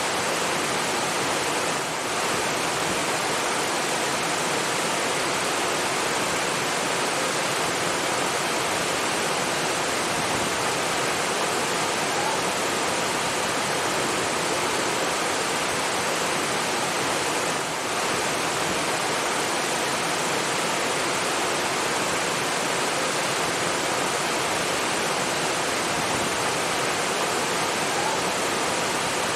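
Steady rushing of flowing water, like a waterfall or fast stream, an even hiss that dips briefly twice.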